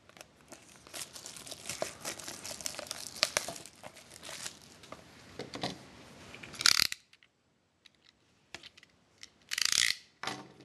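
A sealed trading-card box being torn open: plastic wrapping crinkling and tearing for about seven seconds, ending in a loud rip. Then a pause with a few light clicks, and another brief loud rustle near the end.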